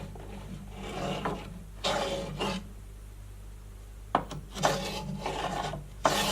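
Pieces of wood scraping and rubbing against each other in several separate strokes, over a steady low hum.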